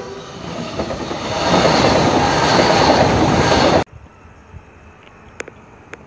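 Three-car electric passenger train running past close by, a steady rush and rumble of wheels on rails that swells over about a second and a half, then cuts off abruptly a little over halfway through. A quieter background with a couple of faint clicks follows.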